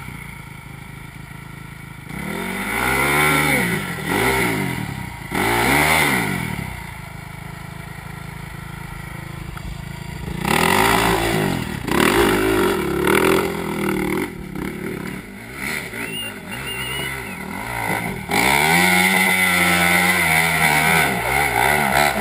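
Dirt bike engine revved hard in repeated bursts, its pitch rising and falling with each blip of the throttle, with a longer sustained run near the end.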